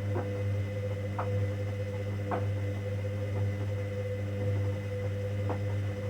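Hoover Dynamic Next washing machine in its 90°C cotton main wash: a steady hum with a higher whine above it, and light clicks now and then.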